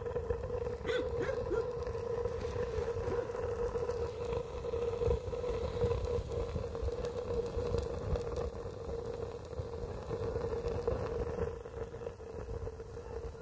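Fire in a Swedish log candle (jätkänkynttilä) drawing hard, with a steady low rushing roar as air is sucked in at the base and the flame shoots up out of the bored centre hole. A steady hum sounds under it throughout.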